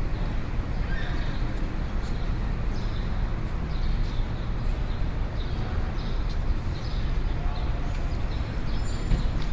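City street ambience: a steady low rumble of traffic, with a run of evenly spaced sharp clops, about two a second, over it.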